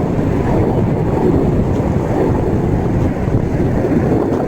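Wind buffeting the microphone: a loud, steady rumble with no distinct events.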